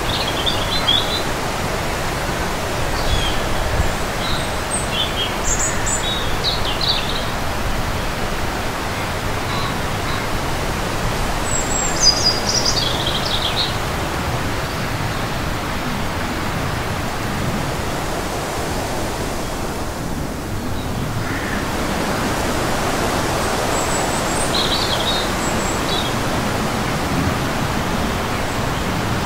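Strong wind buffeting the microphone, a steady rushing noise, with small birds chirping now and then over it.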